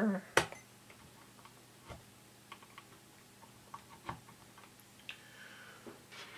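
Scattered light clicks and taps from a digital multimeter and its test leads being handled, with one sharper click about half a second in.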